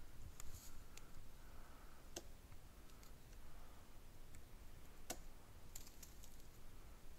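Faint, scattered sharp clicks or snaps, about six in all at irregular intervals, the loudest about five seconds in, over a low rumble.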